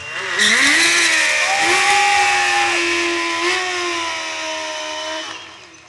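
Sport motorcycle engine revved up about half a second in and held at high revs during a burnout, the rear tyre spinning on the asphalt with a loud hiss. The revs drop away near the end.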